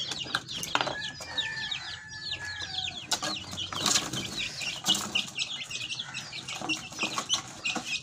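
A group of young chicks peeping constantly in quick, high, falling chirps, with bursts of wing flapping and scrabbling as they hop up onto the wooden cage top. Several sharp knocks of wood and the cage latch come in between.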